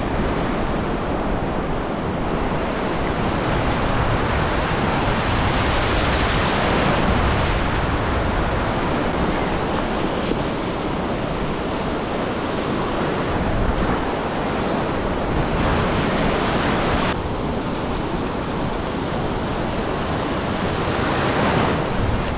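Ocean surf breaking and washing in foam close to the microphone, a steady rush of water, with wind on the microphone.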